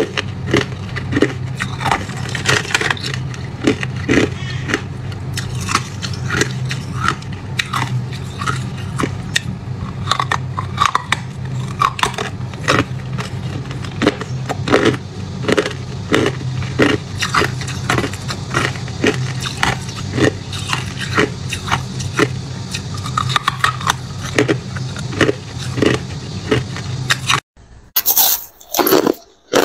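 Ice being chewed and crunched close to the microphone: a dense run of crackling crunches over a steady low hum. Near the end, after a sudden cut, come a few louder, separate crunches of frosted crushed ice being bitten.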